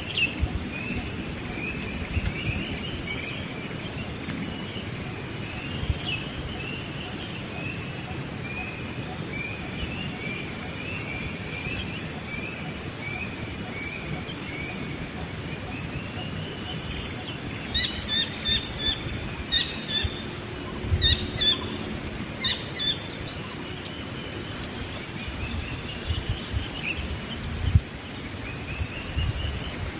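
Wild birds chirping, first as a long run of short repeated calls, then as sharper, spaced chirps from a little past halfway. Underneath is a steady high insect drone, part of which stops about halfway through.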